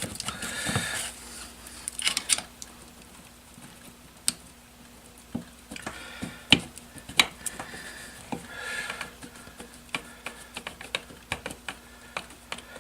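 Scattered small clicks and taps of metal parts being handled, with a few short scrapes, as the crankshaft and its bearings are worked into a small outboard engine's powerhead and seated on their locating notches.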